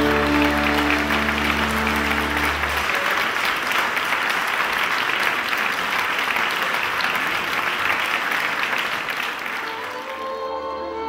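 Audience applauding, with the last held notes of the music ending about three seconds in. Near the end the applause fades and new music starts, with a fiddle.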